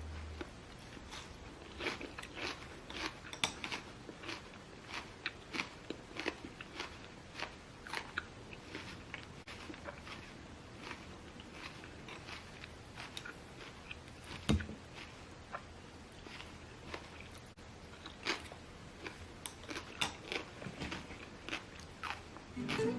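Crunchy food being chewed: irregular sharp crunches at a few a second, with one louder thump about two-thirds of the way through.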